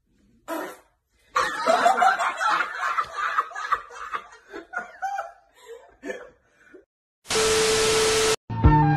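Several people laughing and giggling, loudest at first and then trailing off into scattered giggles. Near the end comes about a second of TV-static hiss with a steady tone through it, a glitch transition sound.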